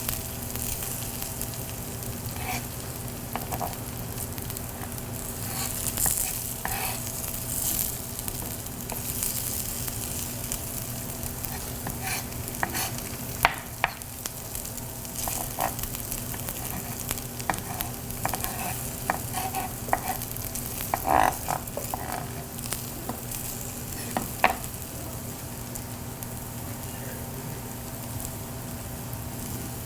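Potato pancakes sizzling as they fry in butter and canola oil in a pan. Irregular clicks and scrapes come from a utensil moving them around the pan so they don't stick.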